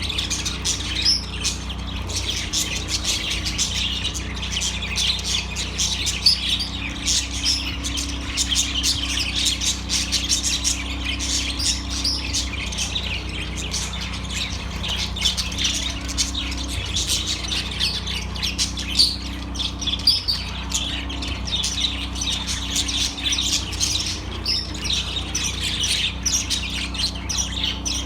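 Budgerigars chirping and chattering without a break, many calls overlapping, over a steady low hum.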